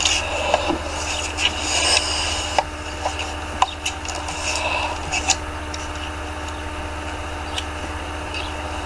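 Irregular rubbing and rustling with scattered small clicks over a steady low hum.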